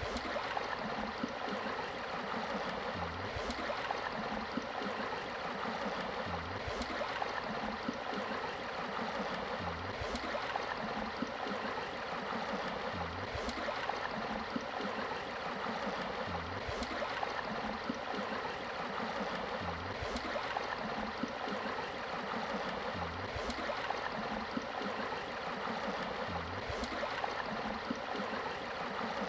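Steady rushing of flowing river water. A soft low thud followed by a faint click repeats about every three seconds.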